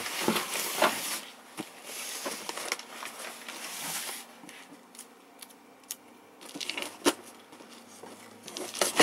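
A knife slicing along packing tape on a cardboard shipping box, with scraping and rustling of the cardboard, louder for the first few seconds. Quieter handling of the box follows, with a few sharp ticks.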